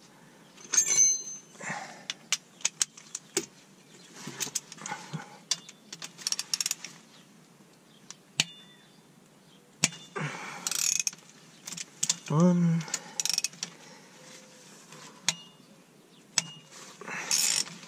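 Hand socket ratchet on a long extension clicking in short runs, with scattered metal clinks of the socket and tools, as 14 mm bolts are loosened on a transmission's center-differential housing.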